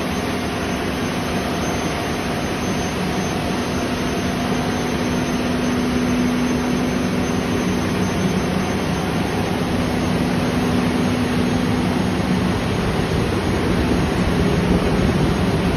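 Marine diesel generator engines running steadily in a ship's engine room: a loud, constant drone with a steady low hum.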